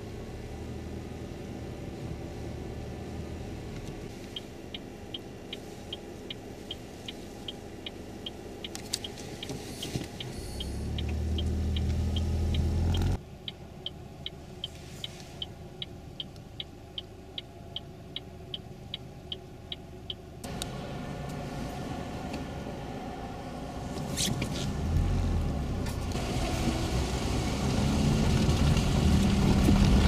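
Vehicle and road rumble in a snowstorm, with a steady clicking about twice a second through the middle stretch. The rumble swells briefly around the middle. Louder road and wind noise builds toward the end.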